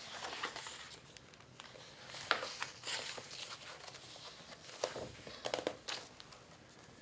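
Pages of a large book being turned by hand: paper rustling, with a few sharper crackles as the pages are flipped over.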